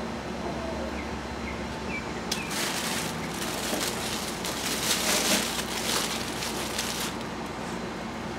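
Green tissue paper rustling and crinkling as a mailed plant is unwrapped by hand. It starts about two seconds in with a sharp crackle and goes on in quick crackles until near the end.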